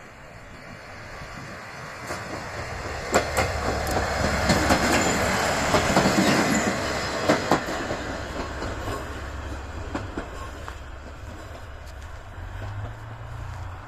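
A train passing at close range. The rumble builds up, a few sharp wheel clacks over the rail joints come through the middle, and then it fades away.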